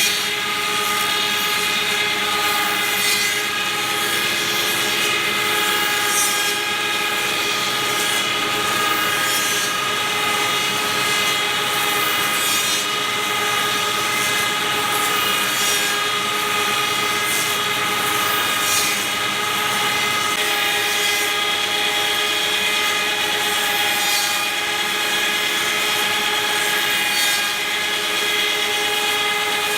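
Cosma SKS 7 copy milling and sanding machine running, a steady whine of several tones over a continuous high hiss, with a slight change in the tone about two-thirds of the way through.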